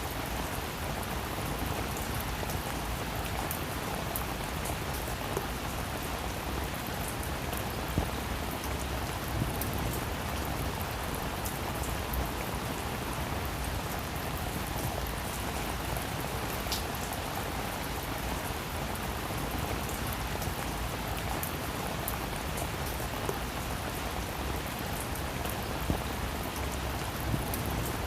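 Steady rain falling on a roof, an even hiss with scattered individual drop ticks and the odd louder drip.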